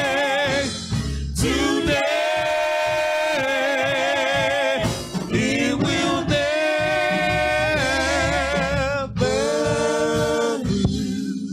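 Slow gospel singing from a church praise team, long held notes with vibrato and short breaks between phrases.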